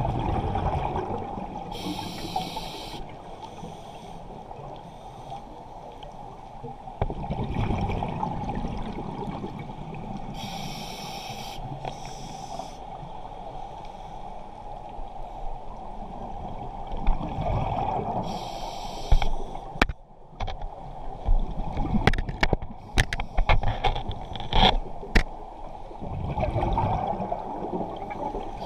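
Scuba diver breathing through a regulator underwater: a short hiss on each inhale, then a long bubbling rush of exhaled air, a full breath about every eight seconds. Sharp clicks and knocks come in a cluster in the later part.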